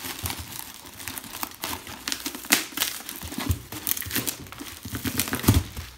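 Cardboard box being torn open by hand, with the newspaper packing inside crumpling and rustling: a dense run of irregular crackles and rips.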